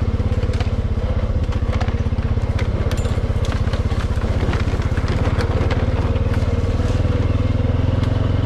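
Four-wheeler engine running steadily with an even low pulse as the ATV drives, with frequent sharp crackles and snaps of dry brush and twigs breaking under the machine.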